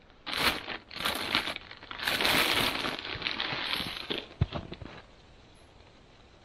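Plastic bag crinkling and rustling in a few bursts as alfalfa bait is pulled out of it by hand, with a single sharp knock a little past the middle.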